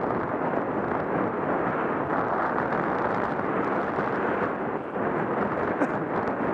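Bicycle rolling fast over a packed-snow trail while being towed by a dog team: a steady rushing noise of tyres on snow, mixed with wind on the microphone.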